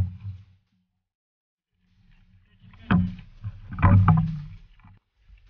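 Knocks and thumps from people moving about on a wooden outrigger boat, with low rumble: a sharp knock at the start, then a louder cluster about three to four seconds in.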